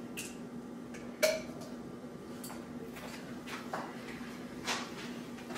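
Handling clicks and taps as a stuck seasoning container is worked at to get its lid open, about half a dozen sharp ticks with the loudest about a second in. A steady low hum runs underneath.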